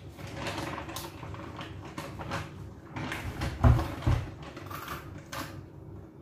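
Plastic carrier bag rustling and crinkling with small knocks as hands rummage in it and pull out a wet catch, with two dull thumps close together a little over halfway through.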